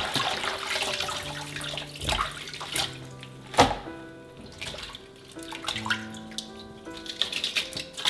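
Tap water running and splashing as bok choy is rinsed in a stainless steel kitchen sink. The water is strongest in the first second, with a few sharp splashes or knocks later, over background music.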